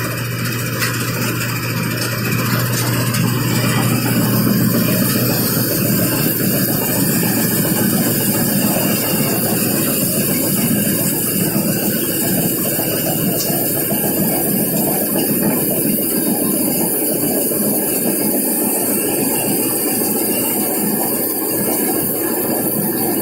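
Combine harvester running steadily. It makes a dense mechanical noise, with a low hum that drops out about five seconds in.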